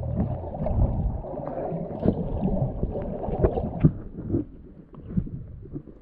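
Muffled underwater sound from a camera moving through the water over a reef: a low hum dies away in the first second, then water rushing past with scattered clicks and knocks, growing fainter after about four seconds.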